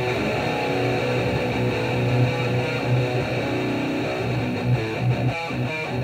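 Outro background music led by strummed guitar, with sustained chords and a steady rhythmic strum.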